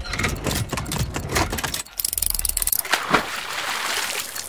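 Sound effects for an animated watch-logo intro: a run of quick, irregular clicks, a high hiss about two seconds in, and one sharp hit about three seconds in.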